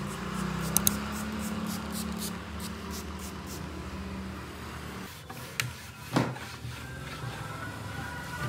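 Plastic trigger spray bottle misting cleaner onto a wooden tabletop: a rapid series of short hissing squirts over the first three seconds or so. Then a cloth is worked over the wood, with a couple of sharper knocks partway through, over a steady low background hum.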